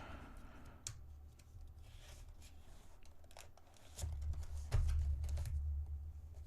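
Cardboard box being opened by hand: scattered small clicks, scrapes and tearing, with heavier low handling rumble from about four seconds in.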